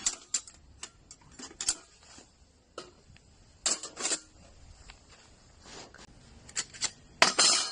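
Metal parts of a folding camping fire pit clinking and clattering as they are handled, with scattered sharp knocks. The loudest clatter comes near the end and leaves a brief metallic ring.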